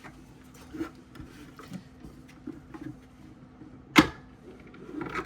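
Light clicks and taps from a 3D-printed plastic helmet being handled and turned, with one sharp knock about four seconds in, over a faint steady hum.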